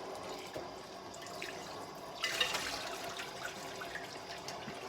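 Kitchen faucet running water into and over a raw whole turkey in the sink, rinsing out its cavity, with dripping and trickling and a louder splashing gush about halfway through.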